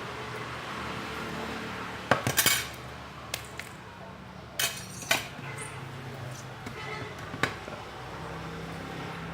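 Small metal tools and electronic parts being handled on a workbench: scattered clicks and clinks, a quick cluster about two seconds in, then single clinks every second or two, over a steady low hum.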